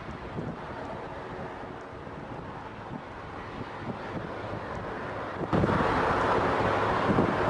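Wind buffeting the microphone over the distant roar of a Boeing 757-200's jet engines on approach. About five and a half seconds in, the noise jumps suddenly louder.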